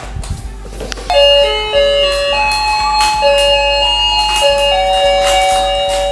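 Rowan rotating musical fishing game playing its built-in tune: a simple electronic melody of single held notes that starts about a second in, after a few clicks.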